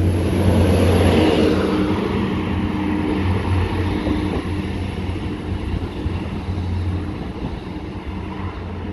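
Class 175 diesel multiple unit pulling out of the platform, its underfloor Cummins diesel engines giving a low drone with a steady higher tone over it. It grows gradually fainter as the train draws away.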